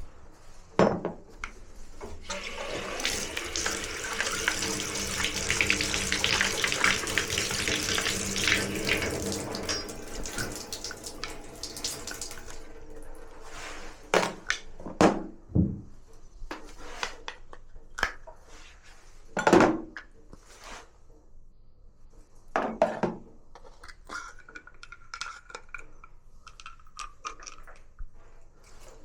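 Water running from a tap, heavy for about ten seconds near the start and lighter afterwards, with several sharp knocks and a brief thin tone near the end.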